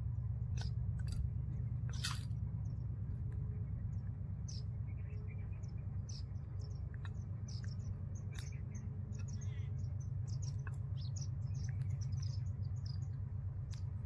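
Jungle babblers calling in many short, high chirps and squeaks, thickest in the second half, with a few sharp rustles near the start from the bird at the metal bowl. A steady low rumble runs underneath.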